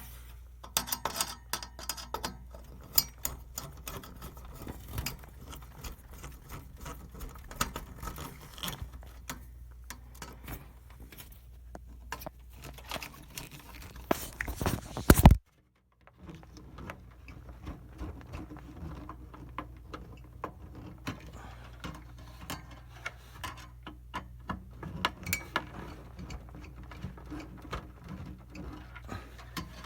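Screwdriver turning screws into a computer build: irregular small metallic clicks and taps over a steady low hum, with a louder clatter about halfway followed by a brief gap.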